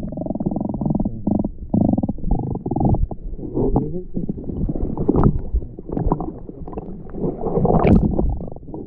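Muffled low rumbling with irregular knocks and scrapes: handling noise on a camera microphone sealed in a waterproof case, the sound dulled with nothing above the low range.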